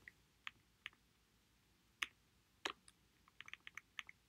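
Keystrokes on a computer keyboard typing terminal commands: a few separate key clicks, then a quick run of clicks near the end.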